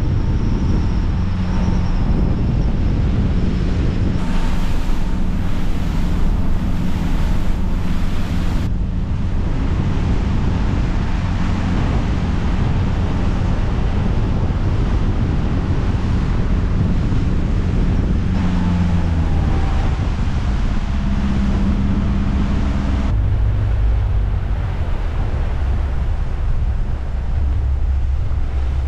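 Motorboat under way: the engine runs steadily beneath wind buffeting the microphone and water rushing past the hull. The sound changes abruptly a few times.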